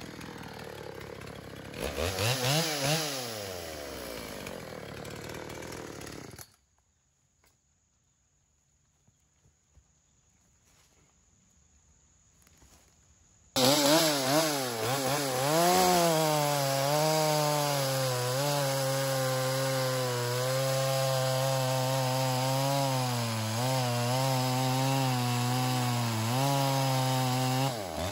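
Dolmar PS-7300 two-stroke chainsaw with a big bore kit running and revving, its pitch falling back. It then cuts out abruptly to near silence for about seven seconds. The saw cuts back in at full throttle, running under load in wood, its pitch dipping and recovering several times.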